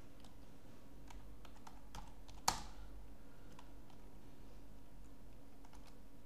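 Typing on a computer keyboard: a scatter of key clicks, with one much louder keystroke about two and a half seconds in and a few more near the end, over a faint steady hum.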